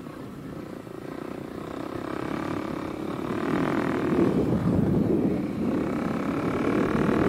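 Kawasaki KLX 300's single-cylinder four-stroke engine running through a carbon Delkevic slip-on exhaust while riding, getting louder over the first four seconds and then holding steady.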